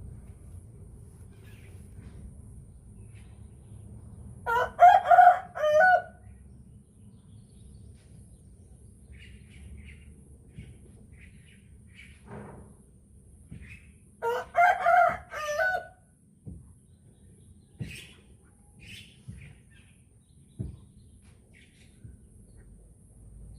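Rooster crowing twice, about ten seconds apart, each a loud multi-part cock-a-doodle-doo. Faint short calls come in between.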